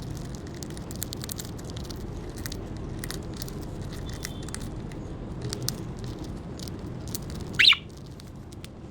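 Budgerigars pecking and cracking seeds, a run of small irregular clicks, over a low steady hum. About seven and a half seconds in, one budgie gives a single short, loud chirp.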